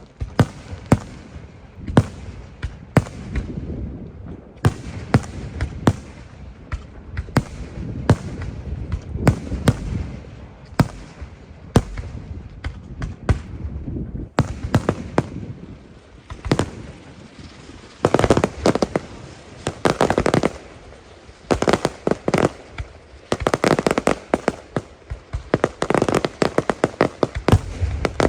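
Aerial fireworks display with loud shell bursts about once a second over a low rumble. Past the middle these give way to dense clusters of rapid crackling reports.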